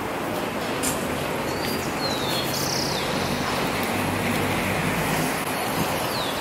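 Steady hum of road traffic, with a few short, falling bird calls over it.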